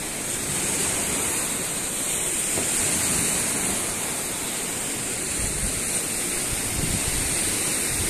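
Steady rush of wind and choppy lake waves washing along the shore, with wind buffeting the microphone from about halfway.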